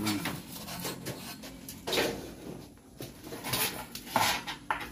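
Scattered knocks and scrapes, about five of them spread irregularly across a few seconds.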